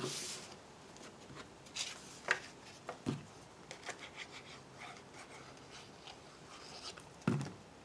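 Cardstock and patterned paper being handled and slid across a craft mat: faint rustling with a few soft taps, and a louder rustle near the end.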